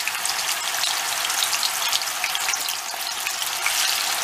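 Ground-beef köfte patties sizzling steadily in hot oil in a non-stick frying pan, a dense crackle of many small pops, while they are nudged with a wooden spatula.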